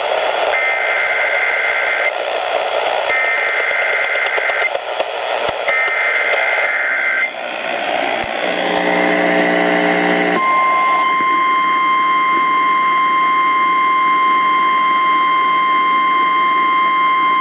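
Emergency Alert System activation received over the radio: three bursts of the warbling SAME data header, each about a second and a half long with short gaps. A brief buzz follows, then a long steady single-pitched attention tone, all over a constant radio hiss.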